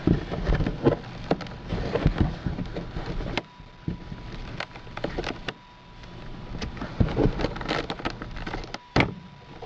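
Old, sun-brittled plastic rear speaker cover of a Toyota Camry being pried out with a flathead screwdriver: an irregular run of clicks, cracks and snaps, the sharpest about nine seconds in.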